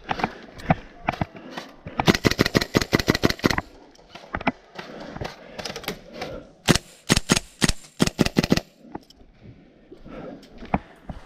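Airsoft rifle firing two rapid full-auto bursts of about ten shots a second, one about two seconds in and one near the middle, with scattered single shots between.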